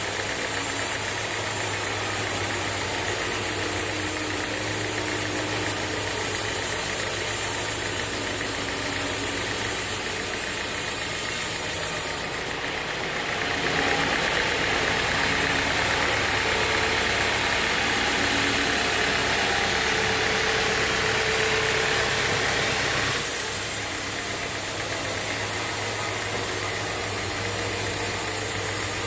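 A band sawmill's machinery running steadily. About thirteen seconds in the sound grows fuller and slightly louder for roughly ten seconds, then settles back to its earlier steady note.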